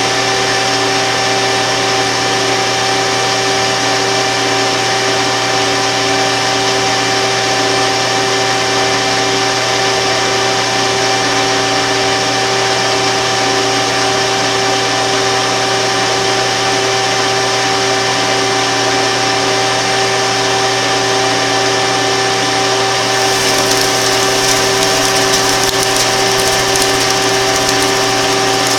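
Grizzly G0554 gearhead lathe running steadily under power feed while cutting steel, with a constant gear-driven hum and whine. About three quarters of the way through, a harsher scratchy hiss joins the steady run.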